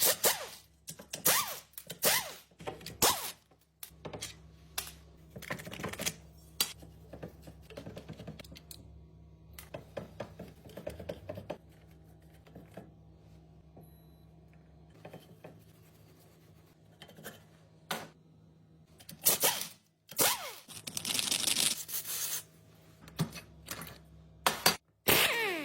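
Irregular clicks, taps and knocks of tools and metal parts being handled while a car alternator is worked on, over a faint steady low hum, with louder bursts and falling sweeps near the end.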